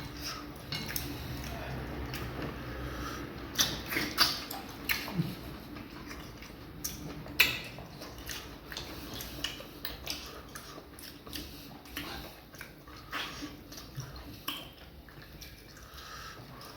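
Close-up mukbang eating sounds as fufu with vegetable soup is eaten by hand: wet mouth and chewing noises with scattered short clicks and smacks, a few sharper ones about four seconds in and again a few seconds later.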